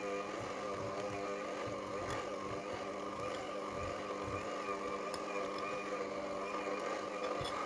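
Electric hand mixer running steadily, its beaters churning through thick half-frozen ice-cream mixture in a glass bowl, with a few faint clicks. The mixture is being beaten again to break up the ice crystals after it froze hard.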